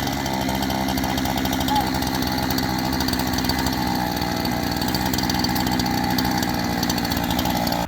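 Small gasoline saw engine on a log sawmill running steadily at low, even speed.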